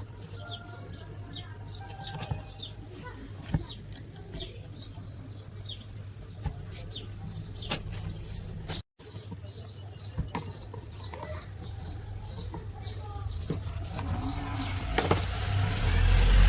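Repeated light clicks and metallic clinks of small parts and tools being handled during wall fan repair work, over a steady low hum. A louder low hum with a rushing noise builds up in the last couple of seconds.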